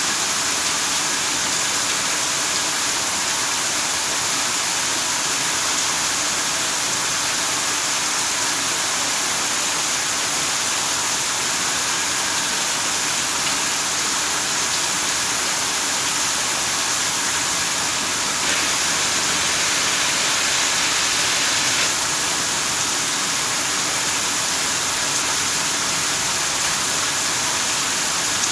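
Factory waste water pouring down like a waterfall, a steady rushing of falling water that swells slightly for a few seconds about two-thirds of the way through.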